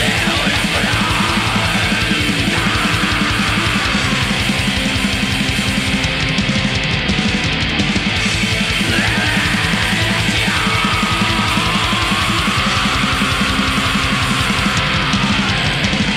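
Black metal recording: heavily distorted electric guitars over fast, rapid-fire drumming, dense and loud throughout.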